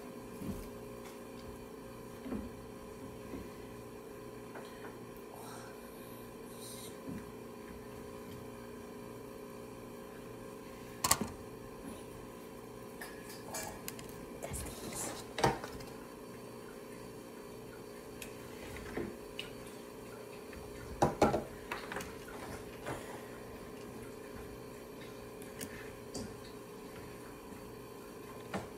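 A small plastic action figure being handled and posed, giving scattered clicks and knocks, the loudest a pair of knocks about three quarters of the way through, over a steady background hum.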